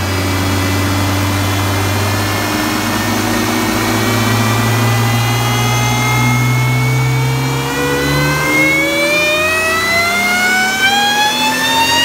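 Sprintex Stage 2 twin-screw supercharger on a 2015 Jeep Wrangler's 3.6-litre V6, whining over the running engine. The pitch holds steady for the first half, then climbs slowly and smoothly as the revs are brought up.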